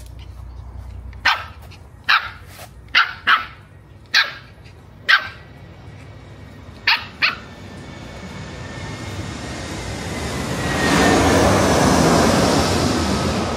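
A small puppy barking up at the monkeys in short, sharp yaps, eight in all over the first seven seconds. After that, a rush of noise swells up and is loudest near the end.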